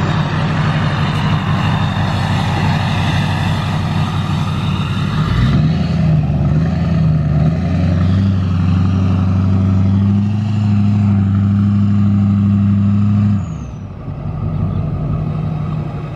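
Lifted Chevrolet Silverado's Duramax turbo-diesel V8 pulling under load up a steep dirt hill. The engine note rises about five seconds in and holds steady and loud, then drops away sharply about thirteen seconds in to a quieter running sound.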